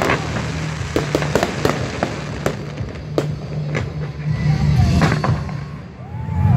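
Fireworks display going off: a string of sharp bangs and crackles from aerial shells and fountains, thinning out a little before building again near the end.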